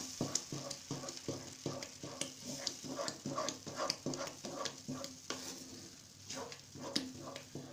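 Spoon stirring and scraping thick moong dal paste around a metal kadhai over a high flame, a steady run of strokes two or three a second, with a light hiss of the paste frying as it is roasted.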